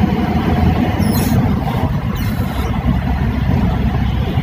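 Steady low rumble of road and engine noise from a moving vehicle, with two brief hissing swooshes about one and two seconds in.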